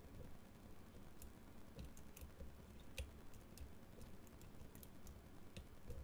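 Faint, scattered small clicks of a hook pick working the pin stack of an Avocet Pioneer Plus brass cylinder lock under light tension, picking pin 2 again; a handful of light ticks, the clearest about three seconds in.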